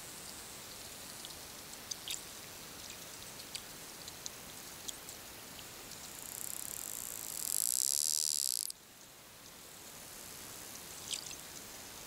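Wild bottlenose dolphins underwater: scattered echolocation clicks over a steady sea hiss. A loud, high-pitched dolphin call builds from about six seconds in and cuts off suddenly near nine seconds.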